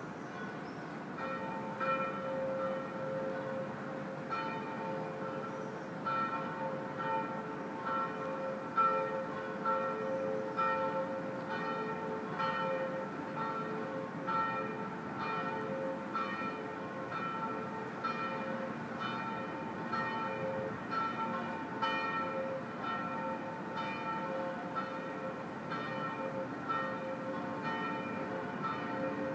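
Church bells ringing a long peal of repeated strokes, starting about a second in, heard across the water over a steady low background rumble.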